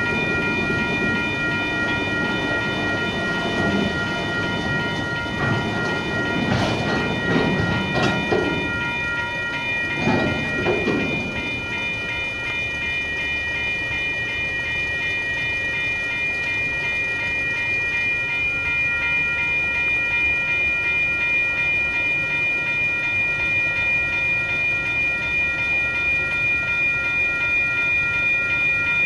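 Autorack freight cars creeping through a level crossing and coming to a stop, with a rumble and a few sharp clanks between about six and eleven seconds in. After that the rumble dies down. A railway crossing bell keeps up a steady ringing over it all.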